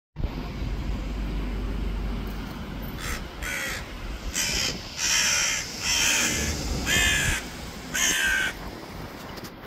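Hooded crow cawing, a run of about seven short caws beginning about three seconds in, over a low rumble of wind.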